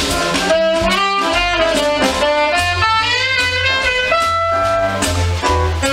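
Small jazz band playing, a saxophone carrying the melody over double bass and drums.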